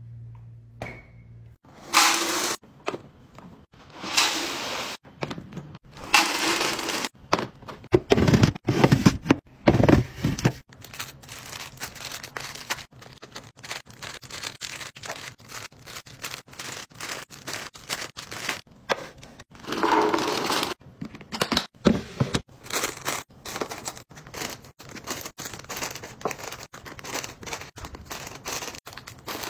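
Crinkling plastic snack wrappers and light clatter as packaged snacks are handled and dropped into clear plastic storage bins, with several louder ripping noises of about a second each.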